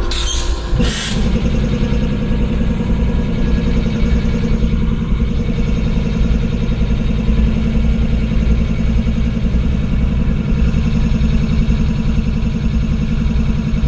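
GE ES40DC locomotive's V12 GEVO diesel engine running steadily, its low note growing stronger about a second in. Two short bursts of hiss near the start.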